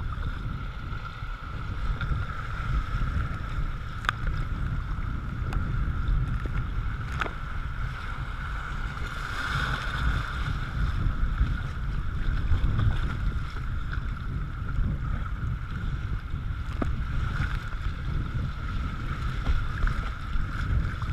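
River rapids rushing and splashing around a kayak's bow and paddle blades as it paddles through whitewater, with wind rumbling on the microphone. A few sharp clicks stand out over the steady water noise.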